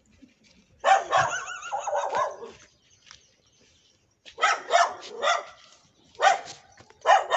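A dog barking in bouts of several barks each: a run about a second in, another about four seconds in, and more near the end.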